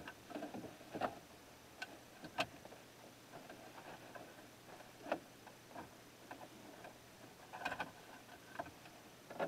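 Faint, irregular clicks and taps of an aftermarket car radio, its wiring and the dash trim being handled and pushed into place in the dash opening, with a few sharper knocks spread through.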